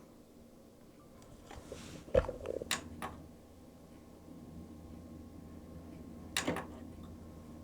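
Toshiba RDXV50KF DVD/VHS combo running after power-on: a low steady hum that grows about two seconds in, with a few sharp mechanical clicks and knocks, loudest about two seconds in and again near the end. The noise sounds to the owner like something stuck in the mechanism.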